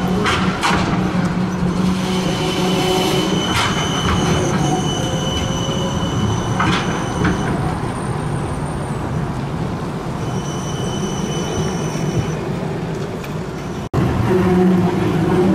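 Siemens Combino tram rolling past, its wheels squealing on the rails in long high steady tones over a steady low rumble, with a few sharp clanks from wheels and rails in the first half.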